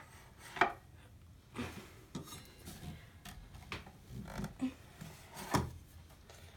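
Handling noise from the mitre saw and its Allen keys: a string of scattered light knocks and clicks with some rubbing as parts and tools are moved about.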